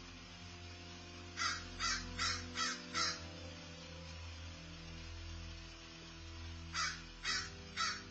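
Crow cawing: a quick run of five caws about a second and a half in, then three more near the end.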